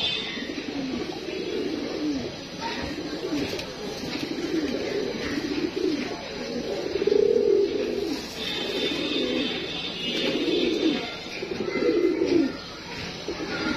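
A flock of fantail pigeons cooing, many low, warbling coos overlapping one after another without a break.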